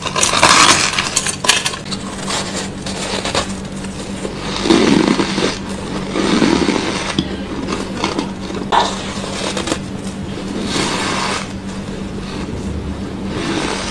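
Close-miked crunching of powdery frozen ice being bitten and chewed, in several bursts, with a steady low hum underneath.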